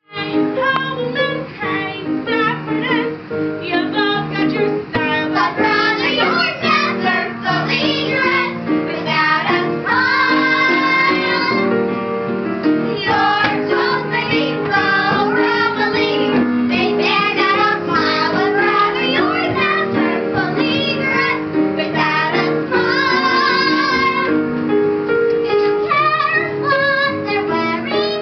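Young girls' voices singing a song with instrumental accompaniment, the held notes sung with vibrato.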